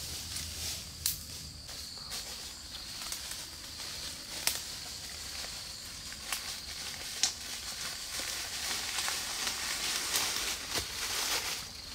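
Footsteps crunching and rustling through dry leaf litter and undergrowth, with irregular sharp crackles of leaves and twigs underfoot, over a steady high buzz of insects.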